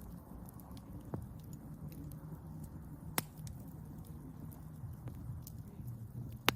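Wood fire burning with a low steady rumble and scattered crackles and pops, the loudest snaps about a second in, near the middle and at the very end.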